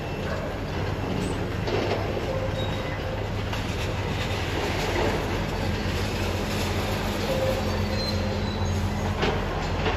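Steady low mechanical rumble, with a few faint short whining tones and a couple of sharp knocks near the end.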